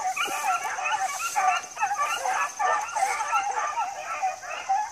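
A pack of beagles baying together, many overlapping voices calling one after another without a break, as hounds do when running a scent trail.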